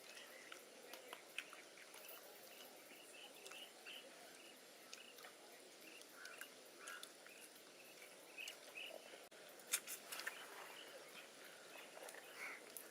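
Faint outdoor ambience with scattered short chirps and a few small clicks, the loudest clicks about ten seconds in.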